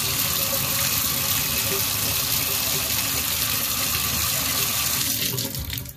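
Water running from a bathtub spout and splashing onto the tub floor near the drain, a steady rush that is shut off near the end.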